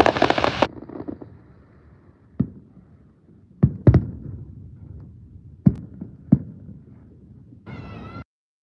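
Distant aerial fireworks: a crackling burst at the start, then five separate booms over the next six seconds, two of them close together, each with a low rumbling echo. Near the end comes a short wavering, pitched whistling tone, and then the sound cuts out.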